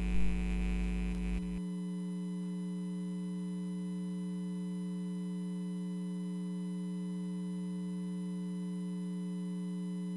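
A single steady electronic tone held without change, the sustained closing note of the background music. A deeper bass note under it stops about one and a half seconds in.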